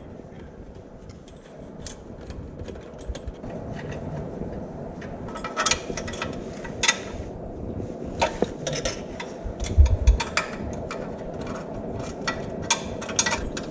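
Irregular metallic clicks and clinks of a 12 mm socket on an extension working the exhaust header flange nuts onto their studs on a Honda Africa Twin 1100, with the clicks growing more frequent over the second half.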